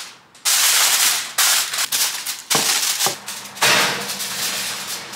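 Aluminium foil crinkling as it is pressed and folded over a ceramic baking dish, in several separate crackly bursts.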